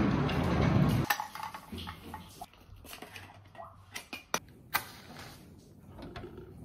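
A steady rushing noise cuts off about a second in, then scattered clinks and taps of a metal spoon and a stovetop moka pot being handled and set on a gas hob grate, with two sharper clinks just past the middle.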